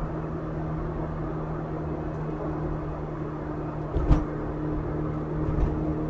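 Car driving, heard inside the cabin: steady engine hum and road noise, with a sharp thump about four seconds in and a smaller one near the end.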